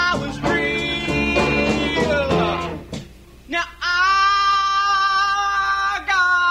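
Live blues-rock band music with electric guitar. After a brief drop about three seconds in, a single long note is held for about two seconds.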